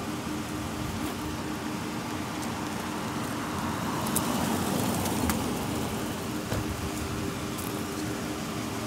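A car driving slowly past, its engine and tyre noise growing as it draws level about four seconds in, then easing off as it moves away.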